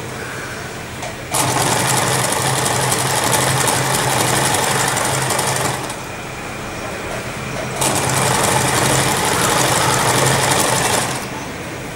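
Electric sewing machine running zigzag stitch along a skirt's raw hem edge, in two runs of a few seconds each with a pause of about two seconds between them.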